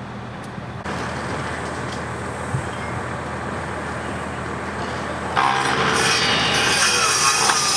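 A fire engine's engine idles steadily; about five seconds in, a power miter saw starts and cuts into a wooden beam, much louder than the idle.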